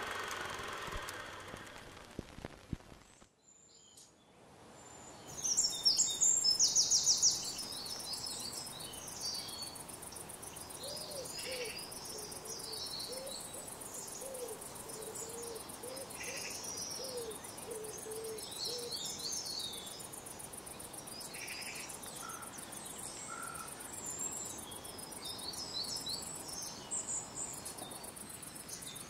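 Woodland birdsong: many short high calls and chirps from several birds, loudest in a fast trill about six seconds in, with a run of low hooting notes in the middle. A low hum fades out in the first few seconds.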